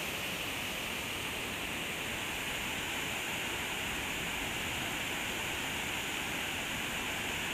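Creek water rushing steadily over a small waterfall into a pool.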